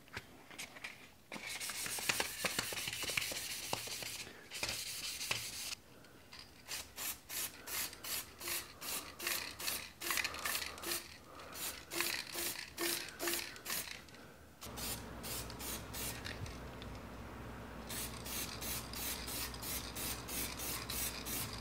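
An aerosol spray-paint can hissing as black paint is sprayed onto PVC pipe: one longer spray, then many short, quick passes at about two to three a second.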